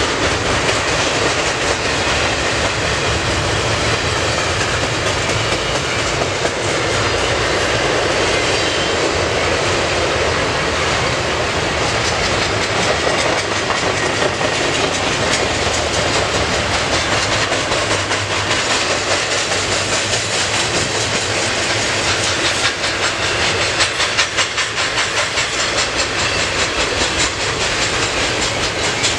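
Double-stack intermodal container cars of a CN freight train rolling past: a steady noise of steel wheels on rail, with rapid clicking from the wheels that grows plainer in the second half.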